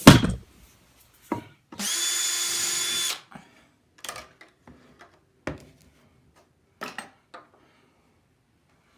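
Power drill running at an even speed for about a second and a half, driving a screw through the wall of a PVC pipe into the wood blank inside it. Around it are a knock at the start and a few light clicks and taps.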